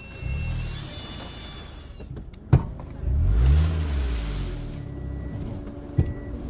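2013 Scion xB driving, its engine note rising and falling as it moves off and slows, with thin high-pitched brake squeals near the start and twice briefly near the end. Two sharp knocks stand out, one midway and one near the end.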